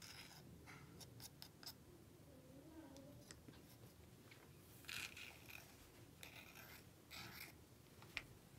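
Faint scraping of a small knife across a miniature wooden cutting board as chopped vegetables are pushed off it, with a few light clicks and taps. Louder scrapes come about five and seven seconds in, and a sharp click just after eight.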